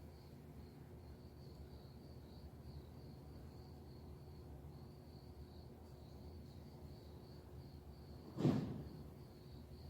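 Insects trill steadily in a pulsing high-pitched chorus over a low background hum. About eight and a half seconds in comes a single sudden thump, the loudest sound, dying away within half a second.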